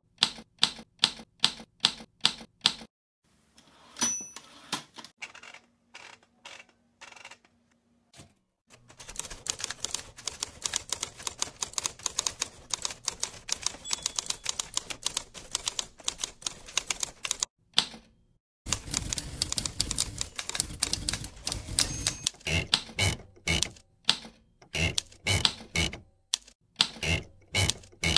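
Typewriter typing: fast runs of key strikes with short pauses between them, the carriage bell ringing briefly twice, about four seconds in and again a little after twenty seconds.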